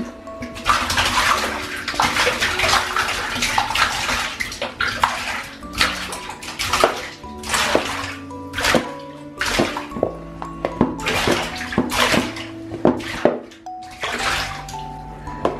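Dozens of small squishy mochi toys poured and pushed from a plastic bin into a bathtub of soapy water, splashing and plopping in a dense, uneven run of splashes, with background music underneath.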